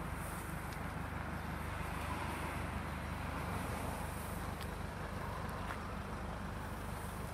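Mercedes-Benz C220d's four-cylinder diesel engine idling steadily, a low even hum under a wash of outdoor air and traffic noise.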